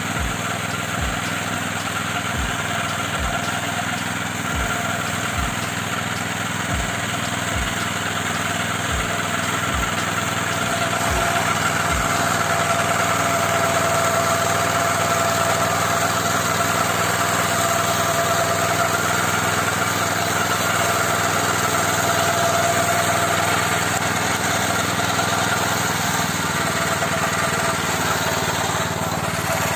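Petrol engine of a Neva walk-behind tractor running steadily under load, driving a rotary disc mower through tall grass. Soft low thumps come about once a second in the first half.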